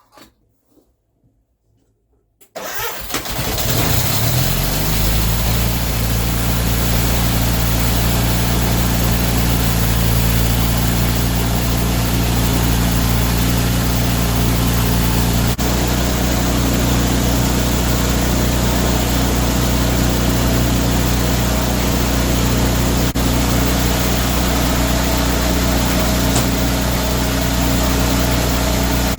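Tractor engine, given starting fluid, firing about two and a half seconds in. It picks up speed briefly, then settles into steady running.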